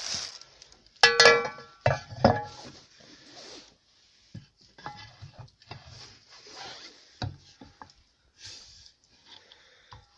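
Steel shovel blade and tools being handled: a ringing metallic clang about a second in, followed by scattered lighter knocks, clatter and rustling.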